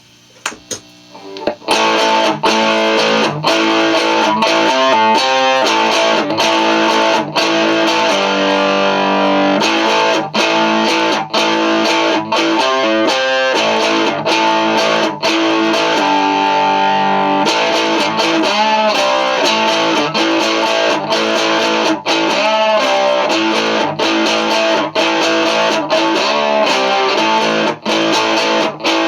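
Electric cigar box guitar with an alnico single-coil pickup, played through distortion. After a brief pause, a rock riff starts about two seconds in: strummed chords and slide notes that waver in pitch.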